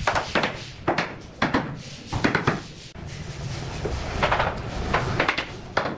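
A hammer tapping bamboo tongue-and-groove flooring planks to close their joints, mixed with the wooden knocks and rubbing of boards being shifted on foam underlay: about eight or nine irregular knocks.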